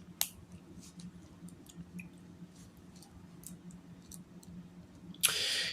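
Faint, scattered clicks of plastic Lego Technic pieces being handled and fitted, with a short, louder burst of noise near the end.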